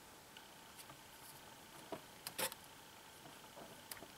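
Faint handling noise as tape is pressed around wires: a few small, sharp clicks, the loudest a short crackle about two and a half seconds in.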